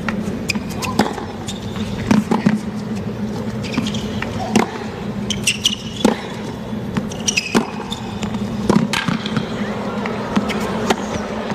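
Tennis rally on a hard court: a run of sharp ball strikes off the rackets and ball bounces, with short shoe squeaks, over a low steady crowd murmur.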